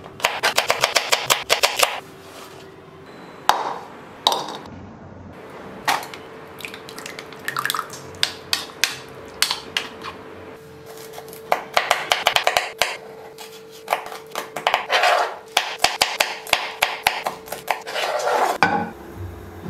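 A kitchen knife chopping vegetables on a wooden cutting board in several quick runs of rapid strokes. In between, a spoon stirs curd in a plastic bowl with softer scraping clicks.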